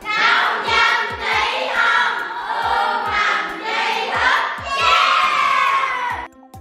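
A group of schoolchildren calling out together in unison over background music with a steady beat. The voices stop suddenly near the end, leaving only the music.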